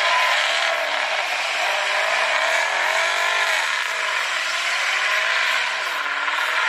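Mini bike's small engine running and being revved, its pitch rising and falling every second or so.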